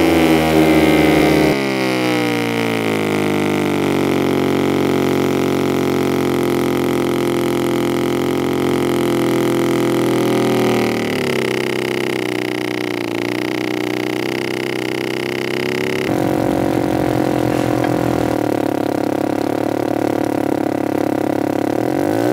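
A low, buzzing electronic drone rich in overtones, its pitch slowly sinking and shifting abruptly three times.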